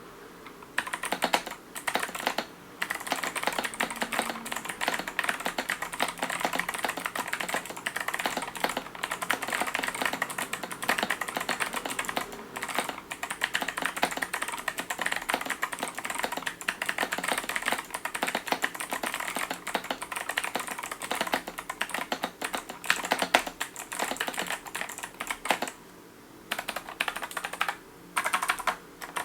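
Fast, continuous typing on an 8BitDo Retro mechanical keyboard with PBT keycaps and an aluminium plate: a rapid run of keystroke clicks and clacks, with a few brief pauses.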